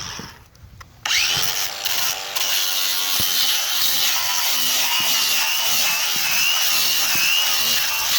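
Cordless angle grinder starting up about a second in after a brief stop, then running steadily while grinding a fiberglass patch to feather its edges, with a high, slightly wavering whine over the scraping noise.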